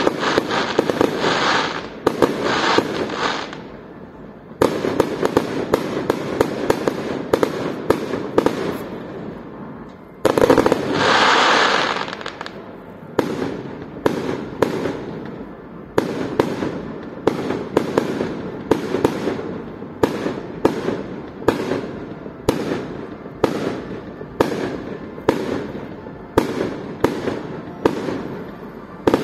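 Fireworks display: shells bursting in dense crackling volleys of bangs, with a louder crackling rush a little over ten seconds in. After that comes a steady run of single bangs, about one or two a second, each trailing off briefly.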